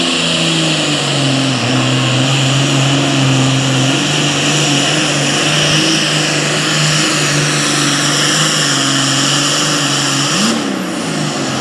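Heavy super stock pulling tractor's turbocharged diesel engine at full throttle under load, dragging the weight sled, with a high whine over a steady engine drone. About ten and a half seconds in, the whine cuts off and the engine pitch falls as the throttle comes off at the end of the pull.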